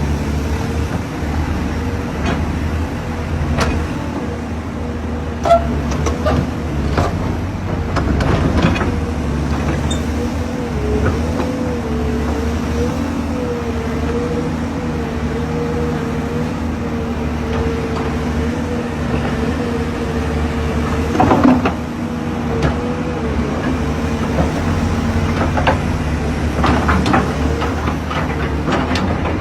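A motor running with a steady hum and a wavering whine, with scattered clicks and knocks, the loudest about three-quarters of the way through.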